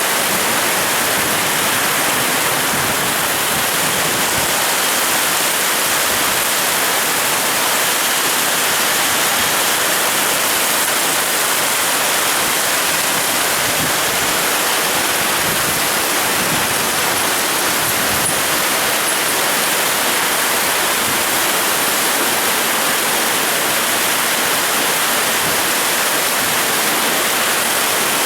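Heavy rain and strong wind of a rainstorm, a steady loud hiss that does not let up.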